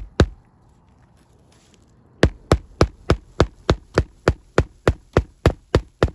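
Hammer driving a roofing nail into a roof shingle: a single blow just after the start, then a fast, even run of about a dozen sharp blows, roughly three to four a second.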